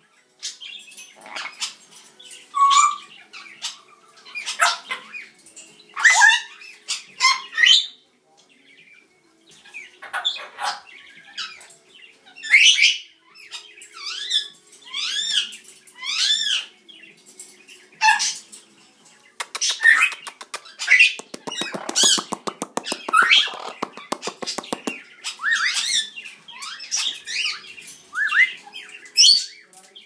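Red-headed amazon parrot squawking loudly over and over in short, sharp calls that swoop up and down in pitch, with a longer rasping, rapidly pulsing call in the middle.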